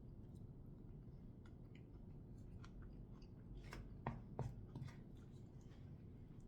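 A person chewing food, faint mouth sounds with soft clicks, and a short cluster of louder clicks about four seconds in.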